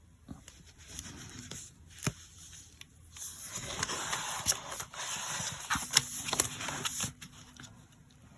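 Hands working paper and craft materials on a work surface: a few light clicks and taps, then about four seconds of scraping and rustling, quieting again near the end.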